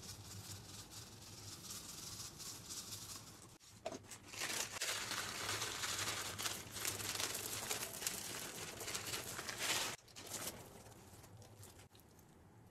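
Fingers pressing and pulling a pink slime packed with foam beads, giving a dense crackling of tiny pops and sticky slime sounds. It grows louder about four seconds in and drops to a softer crackle near the end.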